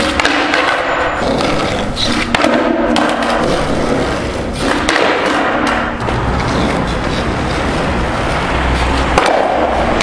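Skateboard wheels rolling on asphalt, a steady gritty rumble, broken a few times by sharp clacks and knocks of the board.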